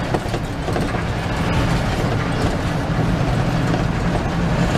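Medium-size intercity bus under way, heard from inside the cabin: a steady engine drone over road and body rumble.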